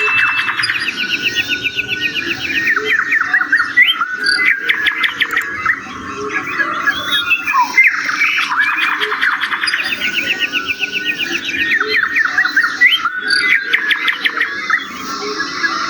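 Many birds chirping and calling at once: a dense chorus of rapid chirps and short whistled glides. The same stretch of calls seems to come round again about every eight seconds.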